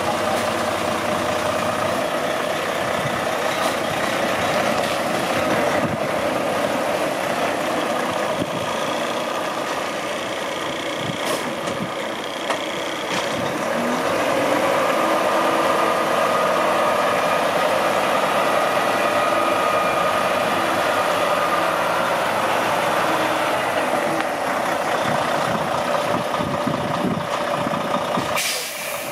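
Volvo VNR300 day cab tractor's diesel engine running steadily as the truck moves slowly around the yard, louder from about halfway through.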